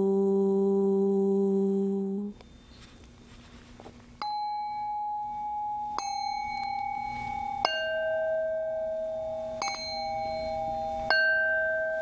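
A single voice holds a long chanted 'U' (oo) vowel, the middle syllable of the AUM mantra, until about two seconds in, then stops. After a short pause, Tibetan singing bowls are struck with a wooden mallet five times, about every two seconds. Each strike leaves a long ringing tone, the bowls sound at different pitches, and the tones overlap.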